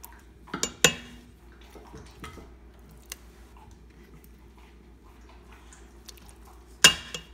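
Tongs clinking against the stainless steel inner pot of an Instant Pot as short ribs are lowered back into the sauce: a few sharp knocks, a cluster about a second in and the loudest near the end.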